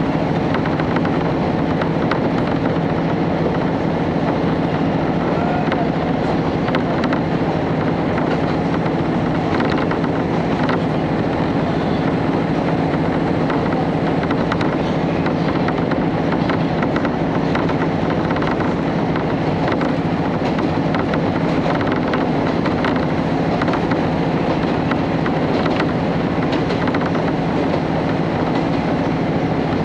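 Interior of a KiHa 31 diesel railcar under way: the underfloor diesel engine running with a steady drone, mixed with the rumble of wheels on rail and occasional light clicks from the track.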